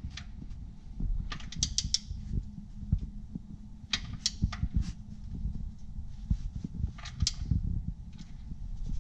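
Hand ratchet clicking in short runs of quick clicks, with pauses between, as a bolt is turned with a socket on an extension, along with low knocks and rubbing from handling the tool.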